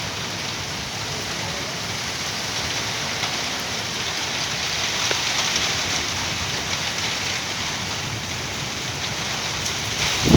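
Steady rain falling during a thunderstorm, an even hiss that grows a little louder around the middle. A low rumble starts right at the end.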